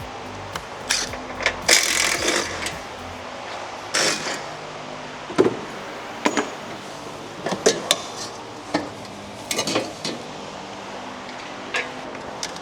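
Hand tools and metal engine parts clinking and clanking during engine disassembly: a scattered series of sharp knocks and clicks over a steady low hum.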